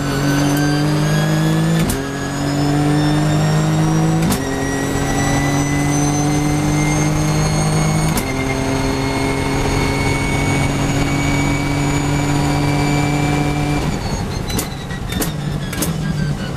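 Nissan GT-R GT3's twin-turbo V6, heard from inside the cockpit, accelerating hard through three upshifts, each marked by a sharp crack, then held at speed. Near the end it brakes and downshifts, the revs falling with a quick string of cracks.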